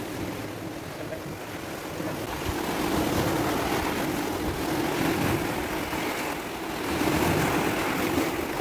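Sea waves breaking and churning against rocks, a continuous wash of surf that swells louder about three seconds in and again near the end.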